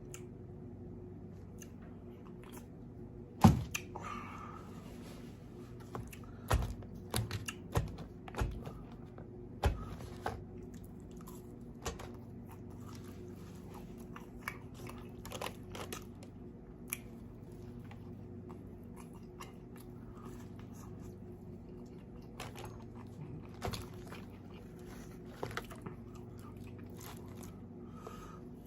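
Close-miked mukbang eating: a person biting and chewing fast food, with wet mouth clicks and smacks, one sharp loud one about three and a half seconds in and a cluster between about six and ten seconds, then sparser chewing over a steady low hum.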